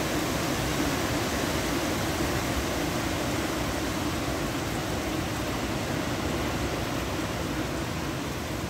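Steady rush of hurricane wind and rain, an even hiss with no gusts or breaks standing out.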